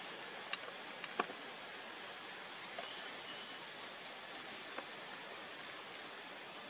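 Steady high-pitched buzz of forest insects with a faint pulse, broken by a couple of short sharp clicks about a second in.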